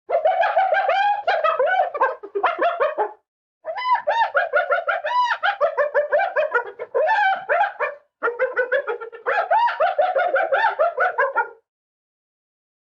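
Spotted hyena laughing: rapid runs of high, rising-and-falling giggling yelps in three bouts, breaking off briefly about three seconds and eight seconds in, and stopping a second or so before the end.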